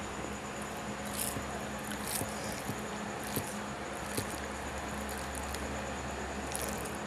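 Fingers squishing and mixing rice with mashed boiled vegetables on a plate: a few short, wet squelches over a steady background hum.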